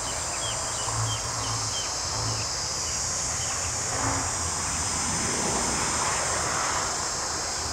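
Steady high-pitched chorus of insects, with scattered short chirps and a low wind rumble on the microphone.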